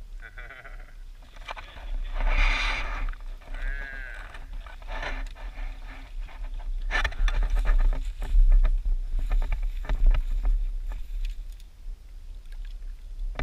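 Wind rumbling on the microphone, with a few short wavering voice-like calls in the first four seconds. After that come many sharp clicks and splashes as a hooked bass thrashes at the surface and is landed at the bank.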